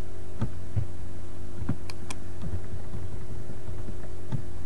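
Steady electrical mains hum on the recording, with a few soft low thumps and two quick, sharp computer-mouse clicks about two seconds in.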